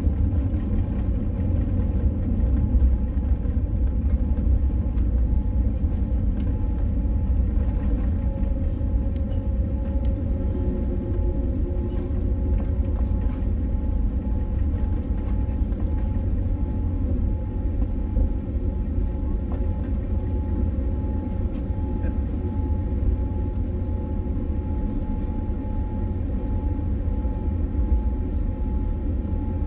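Steady low rumble inside a Boeing 787-9 cabin as the airliner rolls along the ground after landing, with engine and wheel noise and a faint steady whine above it.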